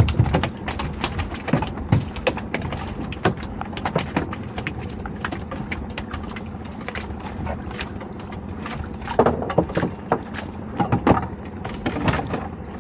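Irregular knocks and clatter of lobster pots and their frames being handled and shifted on a small boat, with a denser run of knocks near the end, over a faint steady hum.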